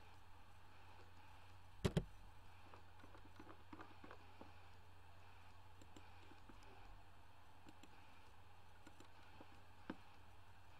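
Low steady hum of a quiet room, with a knock about two seconds in. Scattered faint computer mouse clicks follow, one a little louder near the end.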